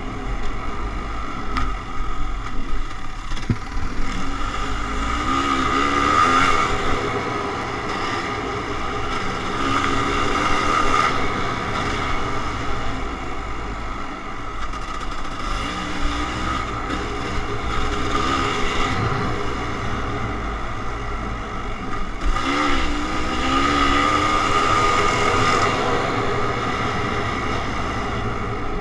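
Kawasaki KX500 two-stroke single-cylinder dirt bike engine running under load, revving up and easing off as it rides, with the pitch climbing sharply twice, about 5 and 22 seconds in.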